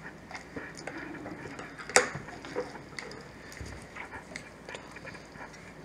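Knife working through a raw rabbit's hip joint to take off a back leg: faint cutting and handling of the carcass with small scattered clicks, and one sharp click about two seconds in.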